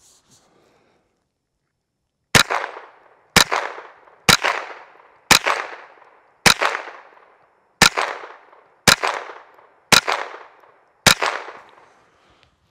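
Nine shots from a Thompson Center TCR22 semi-automatic .22 LR rifle fired at a steady pace of about one a second, starting about two seconds in. Each sharp crack trails off in an echo lasting most of a second.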